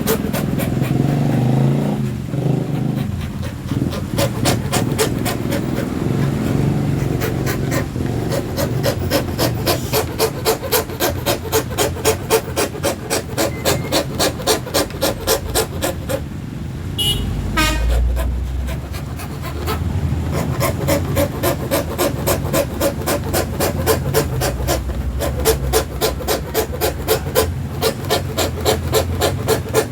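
Hand saw for plywood cutting through acrylic sheet with fast, even back-and-forth strokes. The sawing breaks off briefly about halfway, then picks up again.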